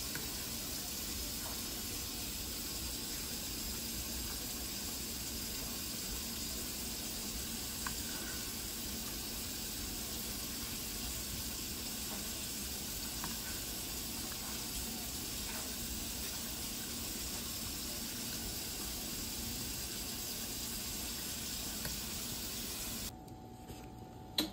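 Pot of chili simmering in an enamelled Dutch oven, a steady sizzling hiss with a few faint clicks of the stirring spoon; the hiss cuts off abruptly near the end.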